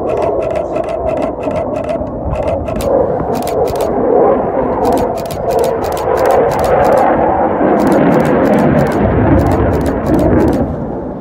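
Eurofighter Typhoon jet engines rushing overhead. The sound builds to its loudest about two-thirds of the way through, then eases off near the end, with sharp clicks ticking throughout.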